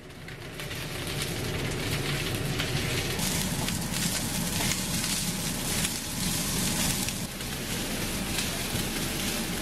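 Cooled cooked rice frying in garlic oil in a nonstick frying pan: a steady sizzle and crackle while a spatula stirs and breaks up the rice.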